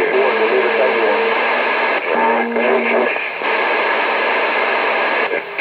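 Two-way radio speaker receiving a weak transmission: steady static hiss with faint, garbled voices breaking through, the narrow, tinny sound of a radio speaker.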